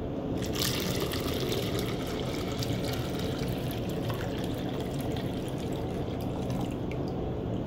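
Water poured from a plastic graduated cylinder into an upturned 2-liter plastic soda bottle, a splashing stream that starts about half a second in, is strongest over the first few seconds and thins out near the end.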